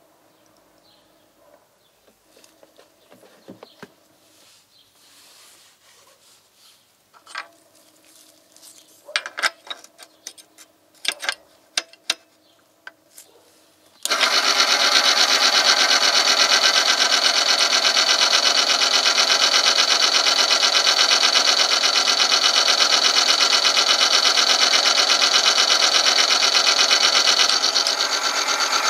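Electric oil-film tester switched on about halfway through: its motor spins a steel roller against the test sample in engine oil heated to 100°C, giving a loud, steady grinding hiss with a fast even pulse. Before that come small clicks and knocks as the oil cup is filled and parts are handled.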